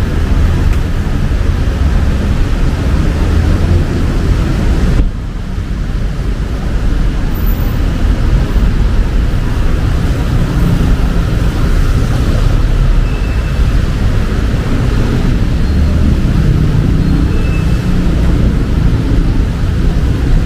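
Low, steady rumble of street traffic under an even hiss of rain. About five seconds in the hiss drops away suddenly, then builds back over the next couple of seconds.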